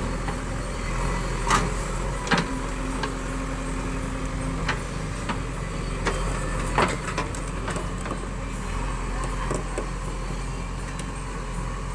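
JCB 3DX backhoe loader's diesel engine running steadily under work, with a handful of sharp metallic clanks. A steady whine sounds for about two seconds, starting a couple of seconds in.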